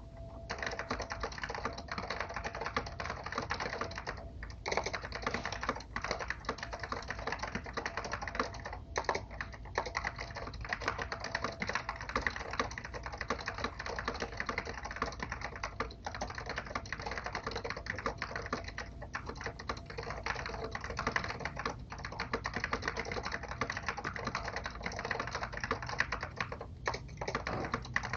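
Fast, continuous typing on an Apple Extended Keyboard M0115 with orange Alps switches, a dense stream of keystroke clicks with only a few brief pauses.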